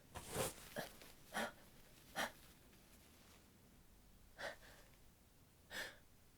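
A woman with a head cold taking short, sharp congested sniffs and catching breaths through a blocked nose, about six of them, unevenly spaced with a longer pause in the middle: the gasping breaths of a sneeze building up.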